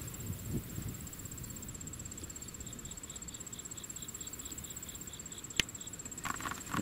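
A thin, high-pitched insect trill, steady and rapidly pulsing, with low rumble in the first second and a single sharp click near the end.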